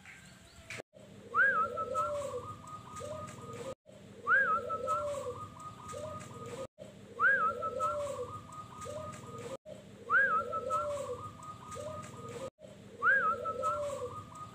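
Zebra dove (perkutut) singing its cooing song. The same phrase comes five times, about every three seconds: a rising whistled note followed by a fast run of short coos. The sound breaks off briefly before each phrase.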